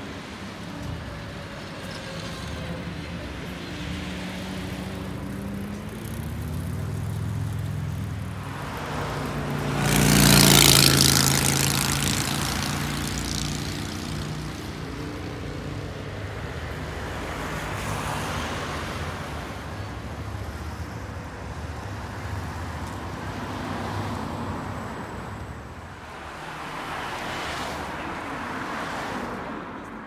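Road traffic: cars passing one after another, each swelling and fading. The loudest pass-by comes about ten seconds in, with a low engine hum under the tyre noise.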